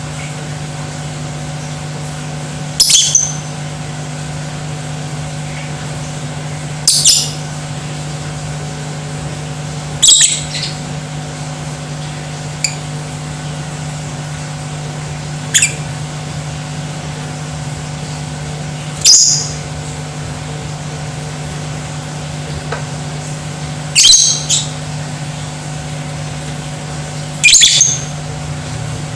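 Lovebird giving short, high-pitched calls, one every three to five seconds, about eight in all, over a steady low hum.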